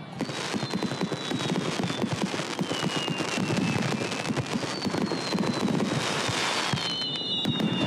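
Aerial fireworks bursting and crackling in a dense, continuous volley, with several long, thin whistles falling slowly in pitch.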